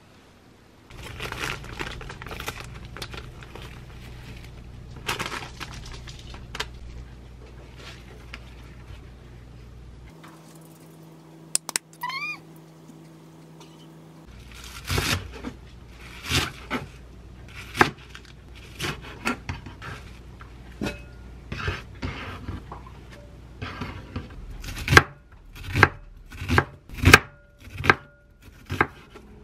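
Kitchen knife cutting vegetables on a wooden cutting board: a run of sharp knocks starting about halfway through, getting louder and more regular near the end. Before that, a steady low hum with scattered small knocks.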